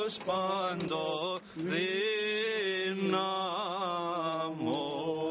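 Greek Orthodox Byzantine chant: men's voices singing a slow, ornamented hymn on long held notes over a steady low drone.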